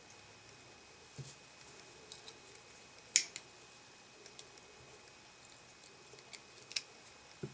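A few scattered small clicks and taps of hand tools working at a small molded plastic headphone plug, the sharpest just after three seconds, against a faint quiet background.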